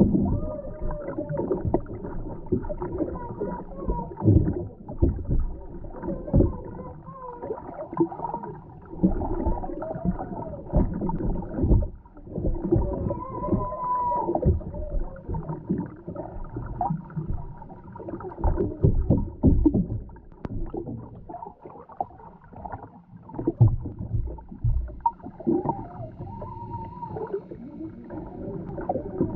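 Underwater ambience heard by a submerged camera: irregular muffled thumps and gurgles, with faint wavering whine-like tones that come and go.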